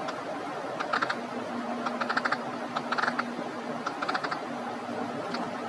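Silicone pop-it fidget toy pressed with all fingers at once, its bubbles popping in five short clusters of quick soft clicks, about a second apart.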